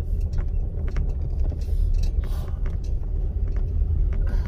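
Vehicle rolling slowly along a gravel road, heard from inside the vehicle: a steady low rumble with scattered small clicks.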